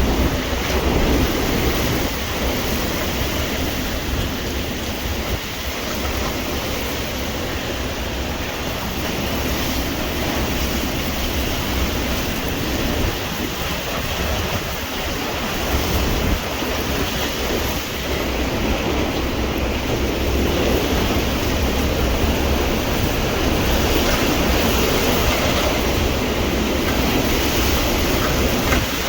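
Hurricane wind and heavy rain making a steady, loud rushing noise, with wind buffeting the microphone as a low rumble.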